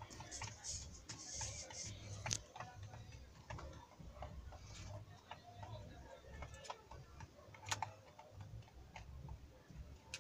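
Pigeons pecking feed from a plastic bowl: an irregular run of soft clicks and taps of beaks on grain and bowl, with a few sharper taps.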